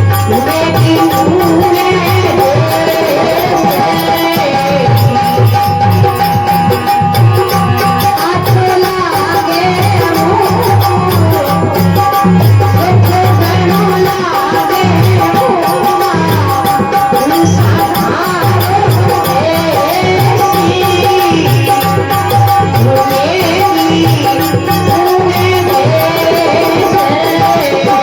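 Rajasthani devotional folk song: a woman's sung melody over a steady held drone note, with a regular hand-drum beat and a rattle keeping time.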